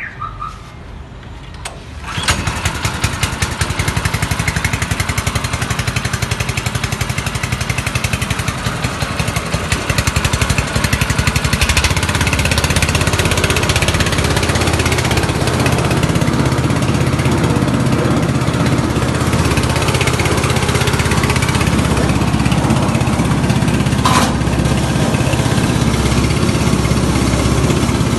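Proquip QX240 single-cylinder petrol engine catching about two seconds in. It speeds up over the next ten seconds or so, then runs steadily at working speed.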